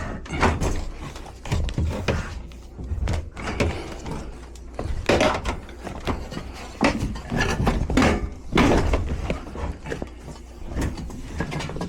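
Irregular knocks, thuds and scrapes of sheet-metal HVAC ductwork and equipment being worked into place. The loudest scrapes come about five seconds in and again near eight to nine seconds.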